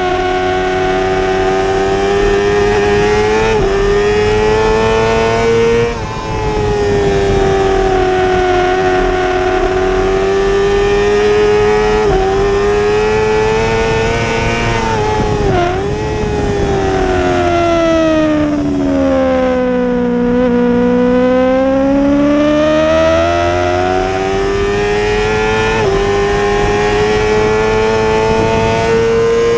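2017 Yamaha YZF-R6 inline-four engine at racing revs, recorded from the bike's onboard camera. Its pitch climbs and drops suddenly at each upshift several times. About halfway through it falls away for several seconds as the bike slows for a corner, then climbs again under acceleration.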